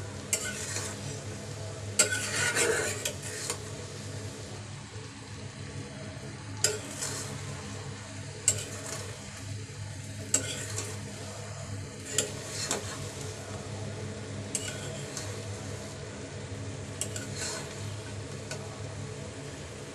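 Steel spatula scraping and tapping against a small iron kadai as raw mango pieces are stirred in a bubbling, sizzling sugar syrup. The scrapes come at uneven intervals, the longest about two seconds in, over a steady sizzle and a low hum.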